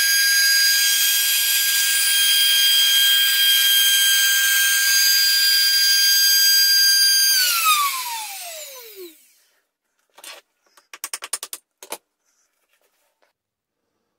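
Trim router with a 6 mm DLC-coated end mill running at speed with a steady high whine, then switched off about seven seconds in, its pitch falling as it spins down. A few short rattling bursts follow near the end.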